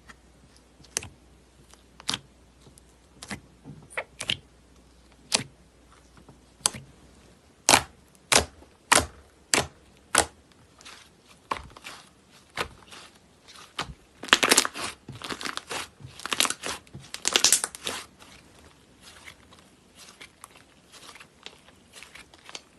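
Slime being pressed and worked by hand, giving a string of sharp pops and clicks about once a second, then a few seconds of crackling about two-thirds of the way through.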